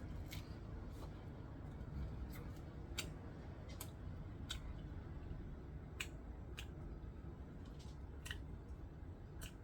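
A string of light, sharp clicks or taps at uneven intervals, roughly one every half second to a second, over a low room hum.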